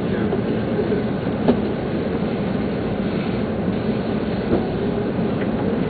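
Steady rumbling hum of a Nagano Shinkansen train standing at a station platform, with two short knocks about three seconds apart.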